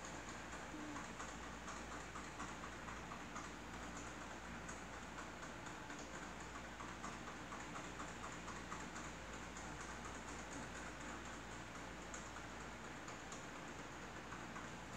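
A sleeping house cat snoring faintly: soft, rapid clicking in runs of a few seconds at a time.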